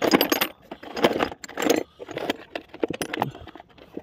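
Spanners, nuts and bolts clinking and rattling together in a tractor's metal toolbox as a hand rummages through them, in several short bursts with scattered single clinks between.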